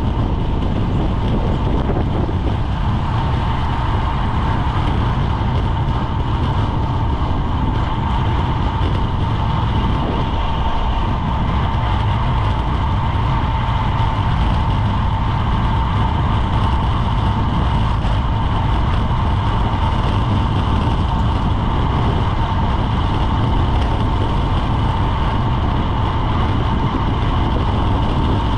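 Steady wind rush and road noise on a bicycle-mounted action camera at racing speed, with a thin steady whine running through it.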